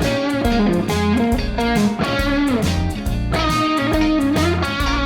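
Stratocaster electric guitar playing a blues lead with string bends, boosted by a J. Rockett Archer Clean Klon-style pedal, over a backing of bass and drums.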